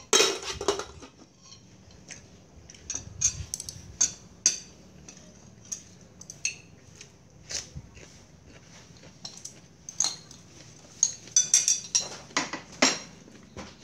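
Spoon and chopsticks clinking and scraping against ceramic plates and bowls during a meal: scattered sharp clicks, with a burst of clatter at the start and a busier run of clinks near the end.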